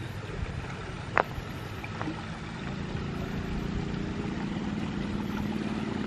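Water running along a stone-lined irrigation channel, with wind rumble on the microphone and a steady low motor hum that grows a little louder about halfway through. One short sharp click about a second in.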